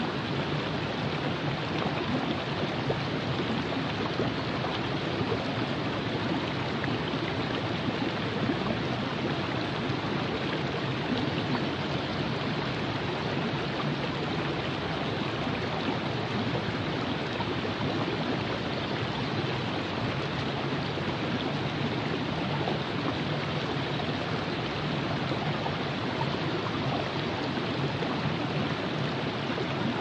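Virgin River flowing: a steady, even rush of running water.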